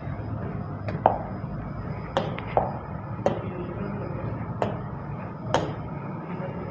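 About seven sharp, irregularly spaced taps of a pen on the glass of a touchscreen teaching board, each with a brief ring, over a steady low room hum.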